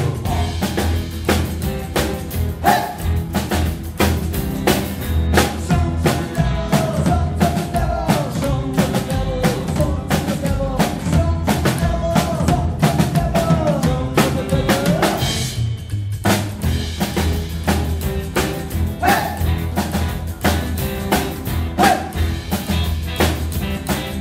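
Rockabilly band playing live, an instrumental passage: drum kit and upright bass drive a fast, even beat under acoustic and electric guitars, with a winding lead line over the top. The band breaks briefly about two-thirds of the way in, then comes back in.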